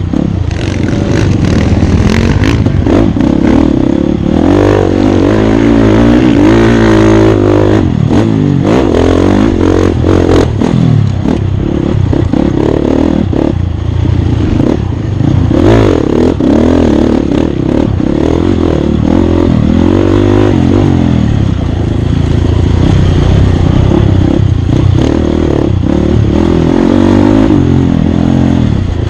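Off-road dirt bike engine revving up and falling back again and again as it is ridden hard, with frequent knocks and rattles from the bike over rough ground.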